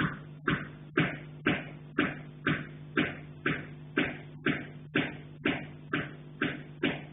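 Metal pipe being struck in a steady, machine-like rhythm, about two knocks a second, each with a short metallic ring, carried through the building. A steady low hum runs underneath.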